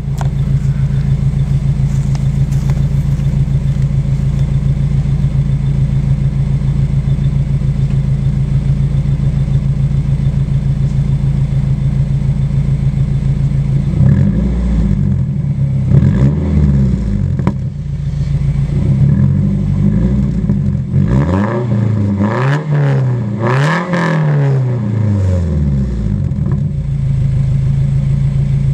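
Nissan S14's naturally aspirated KA24DE four-cylinder idling steadily through a Motoria 3-inch cat-back exhaust. About halfway through it is revved in a series of throttle blips, the highest near the end, then drops back to idle.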